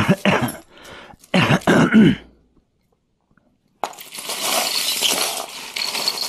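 A brief mumbled voice in the first two seconds, then, after a short pause, about three seconds of steady rustling and rattling as a pile of costume jewelry is sifted by hand.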